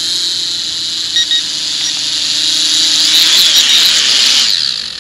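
ATTOP X-Pack 10 mini quadcopter's small propeller motors whining, growing louder as it comes in close, then dying away quickly near the end as the motors shut down with the drone in hand. A quick double beep about a second in is the transmitter's low-battery warning.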